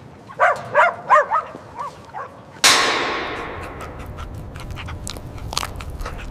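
Puppies making about six short, high calls in quick succession. About two and a half seconds in comes a sudden loud metallic clang that rings out with a long echo and fades over a low steady hum.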